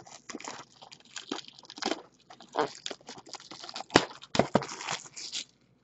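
Clear plastic shrink wrap crinkling and crackling as hands peel it off a sealed trading card box. The crackles and rustles come irregularly, with one sharp snap about four seconds in.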